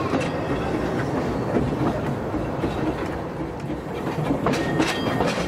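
Talyllyn Railway narrow-gauge carriage running along the track: a steady rumble with the clicks of wheels over rail joints, and a brief high tone near the end.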